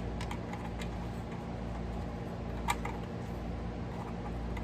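A few light clicks and taps of computer parts being handled, the sharpest about two and a half seconds in, over a steady low hum.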